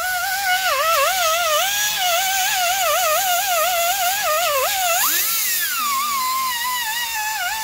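Die grinder spinning a small buffing pad, whining as it buffs old gasket remnants off the engine's water pump mounting surface. The pitch wavers and dips as the pad is pressed on and eased off, with a deeper dip about five seconds in.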